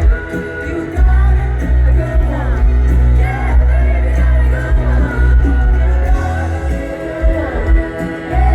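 Live band playing a pop-rock song with heavy bass, and a woman singing lead.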